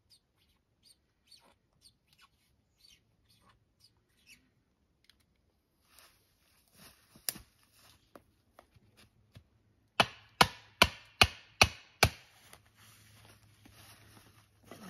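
Faint scattered ticks and rustling, then six sharp hammer blows in quick succession, about 0.4 seconds apart, partway through.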